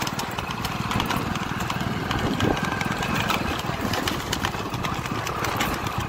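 Motorcycle engine running steadily while riding, with scattered clicks and knocks over it.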